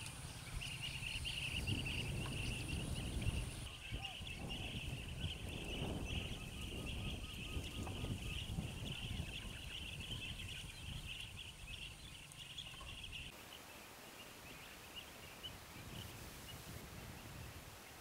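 Evening outdoor ambience: a steady high-pitched chirring of wildlife over a low rumble. The chirring cuts off suddenly about two-thirds of the way through, leaving a quieter background.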